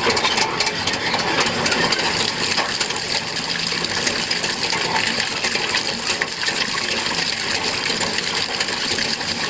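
Water pump running: water splashing and pouring steadily, with many quick metallic clinks.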